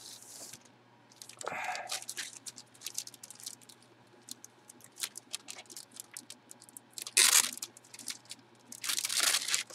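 Clear plastic poly bag crinkling and rustling in irregular bursts as gloved hands handle it and the folded jersey, with the loudest rustles about seven seconds in and again near nine seconds.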